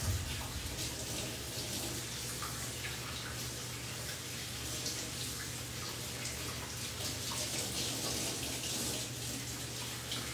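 Kitchen sink tap running steadily, water splashing into the basin as something is rinsed under it.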